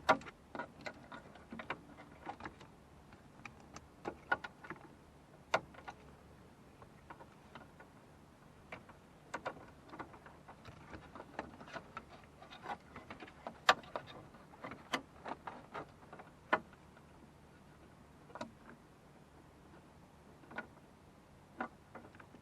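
Irregular clicks, taps and light knocks of plastic dash parts, clips and wiring connectors being handled and pushed into place by hand, a few sharper snaps among them.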